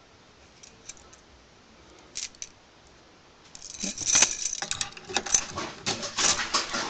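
Metal try-out keys jangling and clinking together on their ring, loud and continuous from about halfway in, after a few faint clicks.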